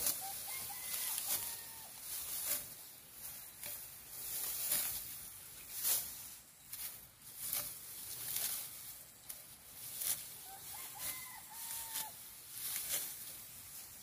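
Hand sickle cutting through dry rice stalks, a crisp swishing rustle repeated at an irregular pace of about one stroke a second. A faint rising-and-falling animal call sounds twice in the background.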